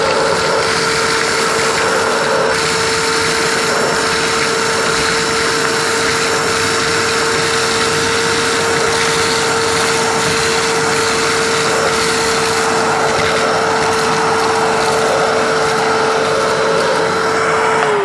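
Kärcher WD1 wet-and-dry vacuum cleaner running steadily with a constant whine and rushing air, its hose nozzle sucking up a pile of gravel and soil. The whine dips in pitch near the end.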